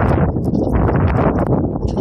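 Strong blizzard wind buffeting the microphone: a steady loud rumble with constant crackling.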